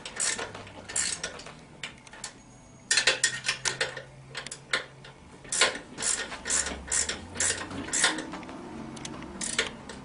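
A wrench tightening down the clamp bolts of an ATV's rear axle carrier, in bursts of sharp metallic clicks and clinks.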